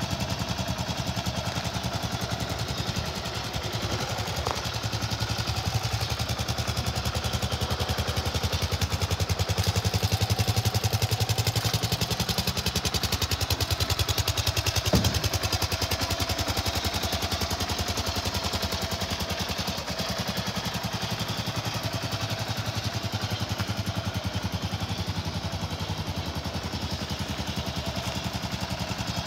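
A 2018 Kawasaki KLR650's single-cylinder four-stroke engine idling steadily, a little louder for a few seconds near the middle. A sharp click cuts in about fifteen seconds in.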